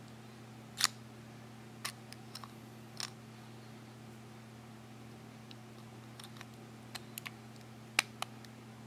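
Sharp little plastic clicks and taps as the parts of a Hulk Grab Zags pen figure are pulled apart and snapped back together, the loudest about a second in and near the end, over a steady low hum.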